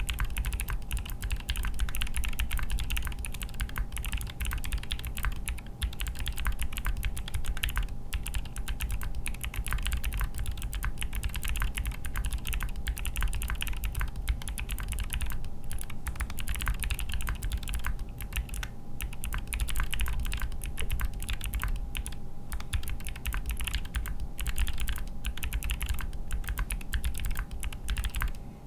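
Continuous fast typing on a mechanical keyboard with clicky Gateron Melodic switches, a Promenade PCB in a Salvation case: a dense stream of key clicks and keystrokes with brief pauses between bursts.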